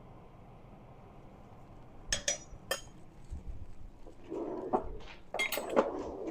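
Kitchen utensils clinking against dishes: three sharp clinks about two seconds in, then a louder stretch of clattering and handling noise in the second half.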